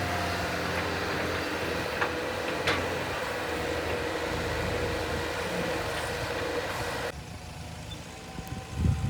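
Heavy diesel machinery running steadily, with two sharp knocks a couple of seconds in. The sound changes abruptly about seven seconds in, and a low thump comes near the end.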